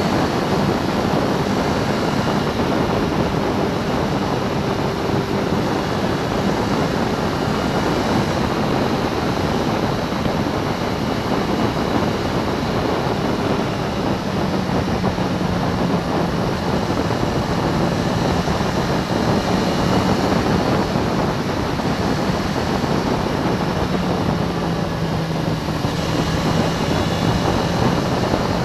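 Motorcycle riding at road speed, heavy wind rush on the bike-mounted microphone with a steady engine drone underneath whose pitch eases slightly lower near the end.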